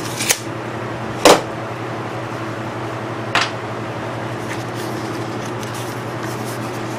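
Three short, sharp knocks and clacks of hand tools being handled and set down against a length of 4-inch PVC pipe while it is marked for cutting, the loudest about a second in. Under them runs a steady low hum.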